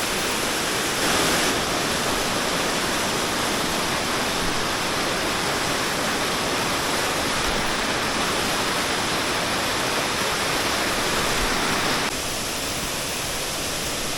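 Steady rushing roar of a large waterfall, loud and unbroken, dropping a little in level about twelve seconds in.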